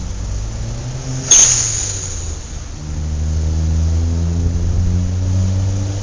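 City street traffic: vehicle engines running at low pitch, a sudden loud hiss about a second in that fades over about a second, then an engine growing louder as a vehicle pulls away.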